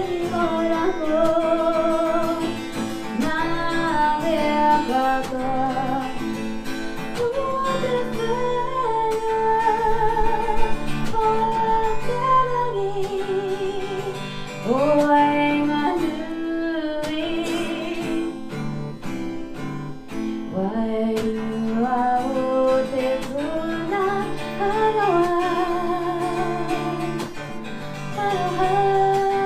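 A woman sings a slow song with acoustic guitar accompaniment, holding long notes with vibrato.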